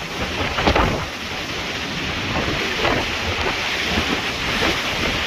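Hurricane wind blowing hard across the microphone, with heavy surf underneath, as a steady, loud rush of noise.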